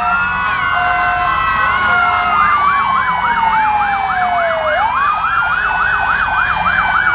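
Several fire truck sirens sounding at once. One wails, rising, then falling slowly and rising again about five seconds in; from about two seconds in, another yelps in quick sweeps, about three a second. Short steady tones sound in the first two seconds, over a low rumble of truck engines.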